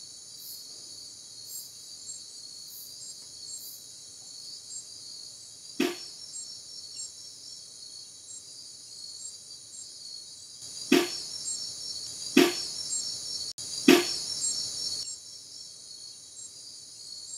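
Night insects chirring steadily. Four sharp knocks cut through it, one about six seconds in and three more a second and a half apart near the end. The uploader presents the knocks as the sound of something being thrown.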